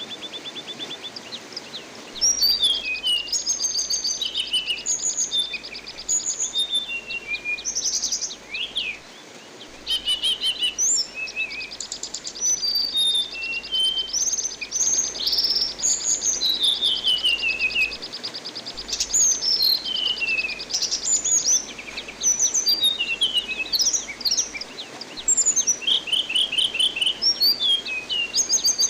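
An anis binbin thrush singing almost without pause: whistled, sliding notes mixed with fast buzzy trills, with brief lulls about a third and two-thirds of the way through. Beneath it runs a steady hiss of flowing water.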